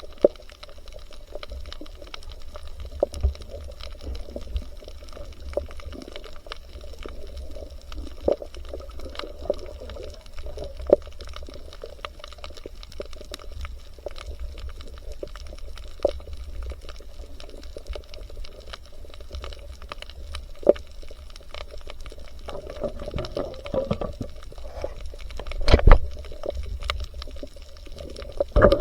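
Water sloshing and bubbling heard by a camera in the water, with a steady low rumble and many scattered sharp clicks, and one louder knock near the end.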